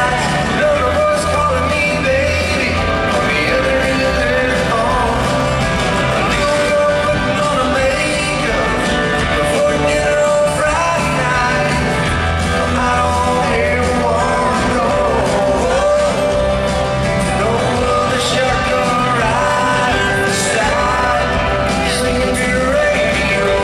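Live country band playing with a male lead singer.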